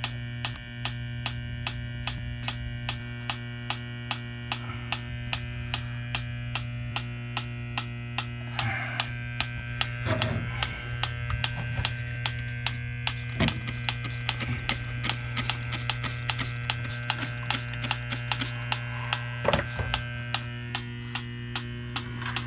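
Steady electrical hum with regular ticking at about three or four ticks a second, with a few brief handling knocks.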